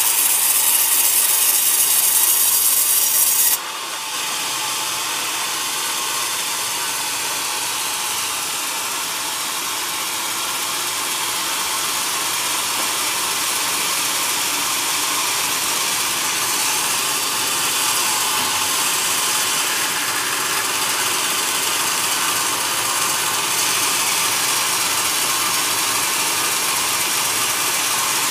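Band sawmill blade ripping lengthwise through a log, a steady, high, noisy sawing sound. There is a sudden drop in level about three and a half seconds in, then the cutting carries on evenly.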